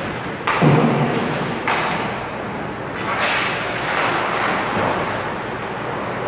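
Ice hockey play on a rink: three sudden thuds, at about half a second, near two seconds and just past three seconds, each trailing off in the arena's echo.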